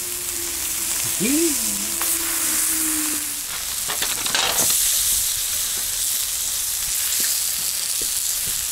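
Zucchini strips and a bavette steak sizzling steadily on a hot, freshly oiled steel fire plate, with a few light clicks of metal grill tongs.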